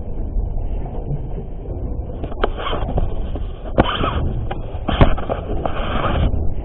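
Wind rumbling on the microphone with the noise of the sea, broken by a few sharp knocks and clicks, about three of them in the second half.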